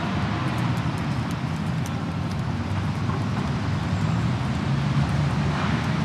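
City street ambience: a steady, low rumble of road traffic, with faint scattered ticks above it.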